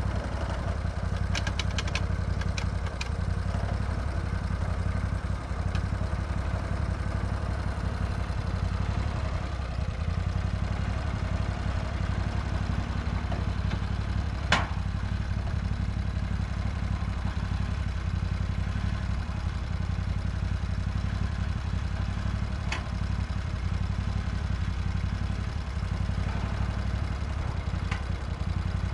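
Lucas Mill 618 portable swing-blade sawmill running steadily under load, its engine driving the circular blade through a beetle-killed lodgepole pine log. There is one sharp click about halfway through.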